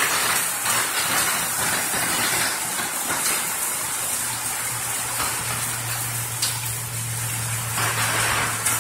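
Heavy thunderstorm rain pouring down, a steady even hiss. A low steady hum comes in about four seconds in.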